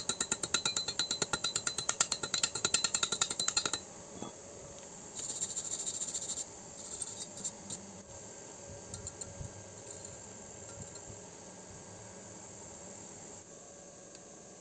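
Slag being cleaned off a fresh stick weld on thin square steel tube with a hand tool: rapid metal strokes, about seven a second, that stop abruptly about four seconds in. A short hissing burst follows about a second later, then only faint ticks.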